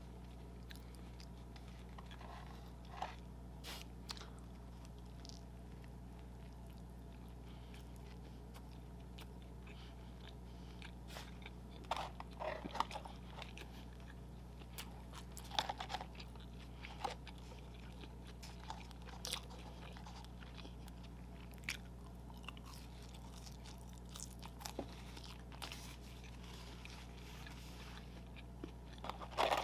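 Close-miked eating of McDonald's fast food: scattered crunchy bites and chewing, busiest about twelve and sixteen seconds in, over a steady low hum.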